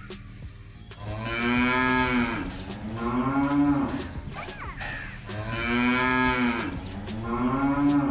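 Cattle mooing: two long, drawn-out moos about four seconds apart, each rising and then falling in pitch before settling lower.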